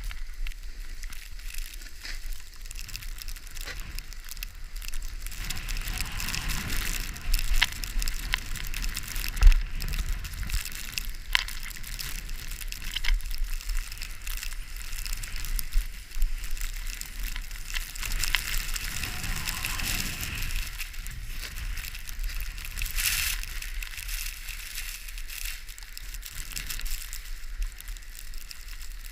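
Sliding down a ski slope: a steady hiss of edges over snow and ice, with scraping crunches, over a low rumble of wind on the microphone.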